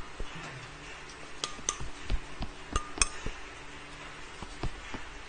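A clear cup clinks and knocks against a container of ground toasted glutinous rice as it is handled. There are two quick pairs of sharp clinks with a short ring, one pair about a second and a half in and one about three seconds in, with softer knocks between.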